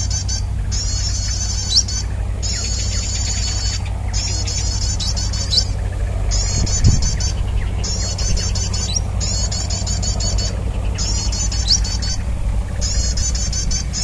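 Bird-lure call (suara pikat) played in a loop: a fast run of high, repeated chirps in regular bursts of about one to one and a half seconds with short breaks, over a steady low hum, with a few sharp high whistles.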